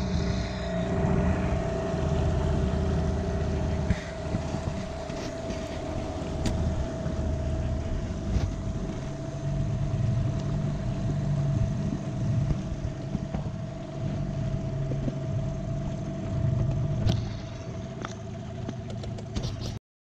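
Small boat's outboard motor running steadily under way, with a constant whine over a low rumble. The sound starts and cuts off abruptly.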